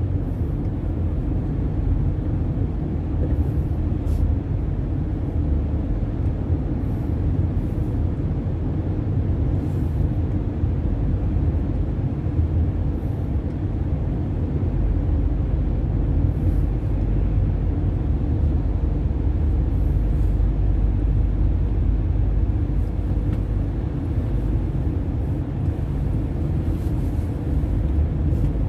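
Steady low rumble of a car driving at speed through a road tunnel, heard from inside the cabin: tyre and engine noise.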